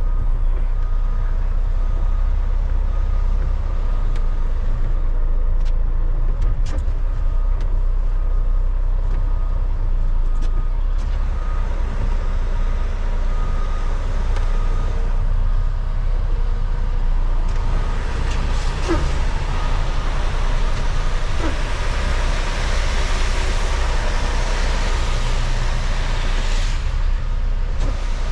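A semi-truck's diesel engine running steadily, a low rumble heard from inside the cab, with a few sharp clicks in the first third. A broad hiss comes in a little past the middle and fades near the end.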